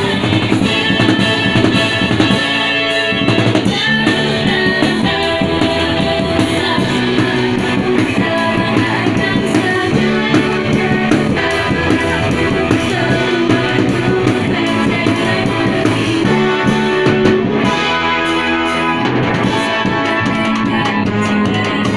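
Live amateur rock band playing a pop-rock song: two girls singing lead into microphones over electric bass guitar, keyboard and drum kit, played through amplifiers.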